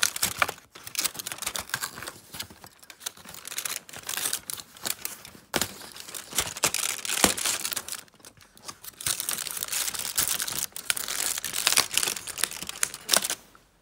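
Cardboard advent calendar being torn open by hand, with crinkling and rustling of foil wrapping, in stretches broken by short pauses.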